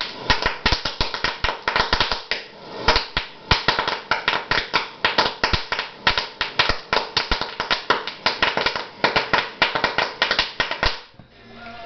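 Rapid, irregular sharp pops, several a second, as bubbles of hydrogen-oxygen gas from a stainless-steel-wool electrolysis cell reach the water surface and are ignited by a torch flame. The steady run of pops is the sign of strong gas production. They stop about eleven seconds in.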